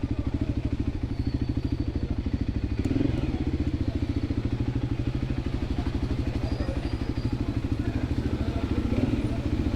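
Voge 300 Rally's single-cylinder engine running at low revs, a steady rapid pulse of firings, picking up slightly about three seconds in and again near the end.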